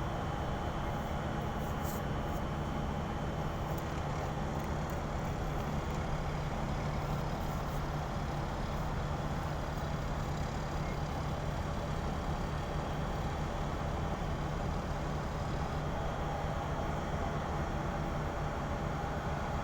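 Steady, unchanging drone of a ship's running machinery: a low hum with a few fixed higher tones over a constant rush.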